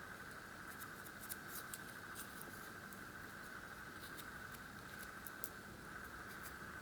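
Faint, small metallic clicks and scratches of a thin shim being worked into a Euro cylinder lock to hold the pins while the core is gutted, over a steady faint hiss.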